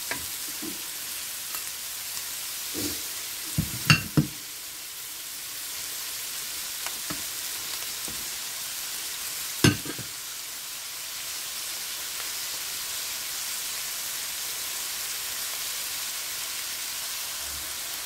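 Diced onion and bell peppers sizzling in olive oil in a frying pan, stirred with a wooden spatula. A few sharp knocks of the spatula against the pan come about four seconds in and again near ten seconds.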